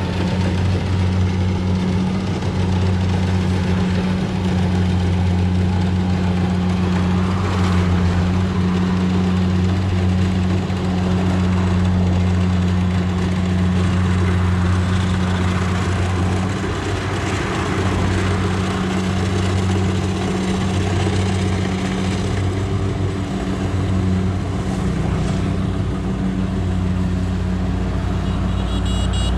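Kubota rice combine harvester's diesel engine running steadily as it harvests, a low, even hum that eases a little about halfway through.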